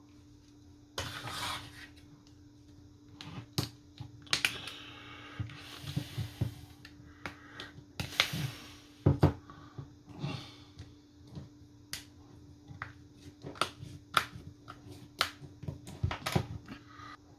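Irregular clicks, taps and short scraping sounds of a phone and small repair tools being handled on a work surface, over a faint steady hum.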